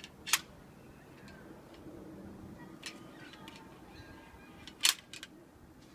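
An old stapler struck along the neck of a sparkling wine bottle in a sabering attempt: two sharp knocks about four and a half seconds apart, with fainter clicks between and after. The bottle does not open, and the paper label on the neck is causing a problem.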